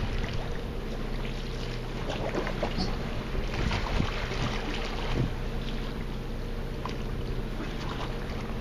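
Boat motor running steadily with an even hum, while a rod and reel are worked against a hooked fish, giving scattered small clicks and knocks.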